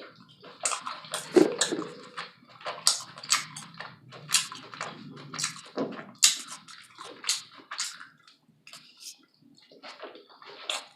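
Close-miked wet chewing and mouth sounds of a person eating a taco salad, irregular strokes several a second, fainter for a stretch near the end.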